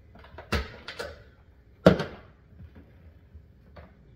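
A few sharp plastic clicks and knocks from a blender jar and its lid being handled, the loudest just under two seconds in.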